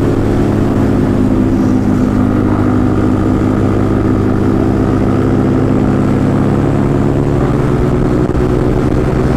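Yamaha MT-15's single-cylinder engine with an Akrapovic exhaust running at a steady cruise while riding. Its note holds steady and shifts slightly about seven seconds in.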